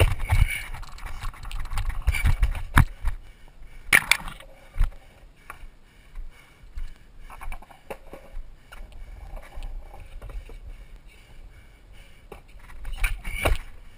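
Rayne Vandal longboard's wheels rumbling over concrete, broken by sharp clacks as the board is flipped and lands, about three and four seconds in and again near the end; quieter in the middle.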